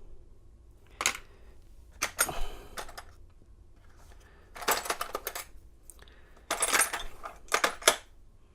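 Metal parts of an American 700 padlock clinking and rattling in several short bursts as the lock is handled and taken apart.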